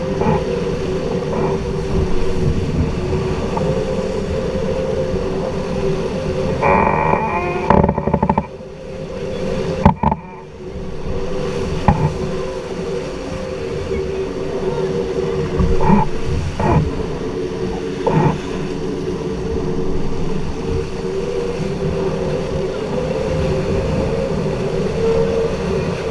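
Heavy wind rushing over the microphone aboard a racing sailboat, with a steady droning hum under it. A clatter about seven seconds in and a few short knocks later on.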